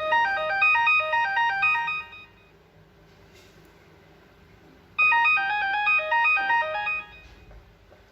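LG KU950 mobile phone playing a ringtone through its speaker: a quick run of electronic melody notes lasting about two seconds, a pause of about three seconds, then the same phrase again.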